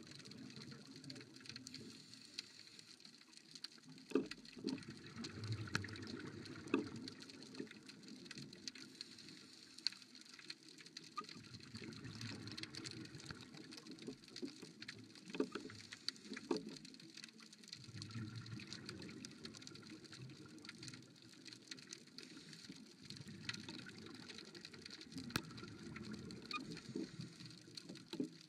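Underwater ambience on a rocky seabed: a steady scatter of small clicks and crackles, with low bubbling surges from scuba divers' exhaled air coming and going every few seconds.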